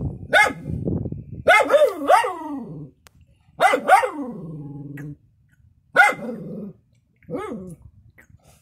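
A young dog barking repeatedly at a garden snake, about seven sharp barks that drop in pitch. One bark near the middle trails off into a low, drawn-out growl.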